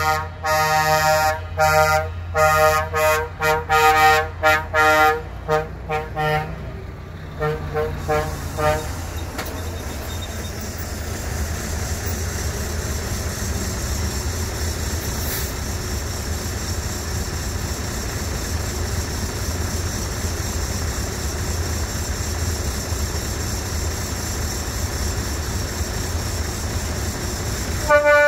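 Truck air horns sounding a multi-note chord in a quick run of short toots for about the first eight seconds, then the steady rumble of lorry diesel engines as a convoy of trucks rolls past. Another horn blast comes right at the end.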